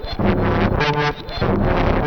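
Eurorack modular synthesizer running an Erica Synths patch with the Black Ring XFade ring modulator and the Black Dual ASR EG envelope generator: a repeating sequence of short pitched notes, about two a second, with brief dips between them.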